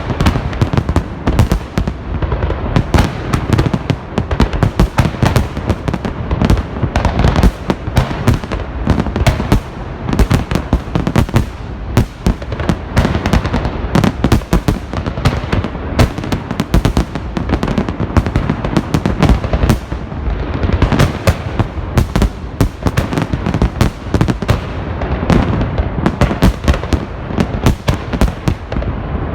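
Large festive fireworks salute: a continuous dense barrage of shell bursts and crackling, many bangs a second, loud throughout.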